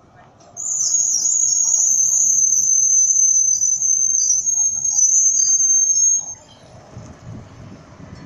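B2-class tram squealing as it rolls slowly along the platform: one loud, high-pitched squeal, steady with a slight waver. It starts about half a second in and cuts off suddenly about six seconds in, leaving the low rumble of the tram rolling past.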